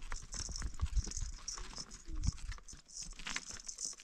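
Dry twigs and brushwood crackling and snapping as they are handled and broken: a quick, irregular run of small cracks. A brief animal call sounds about two seconds in.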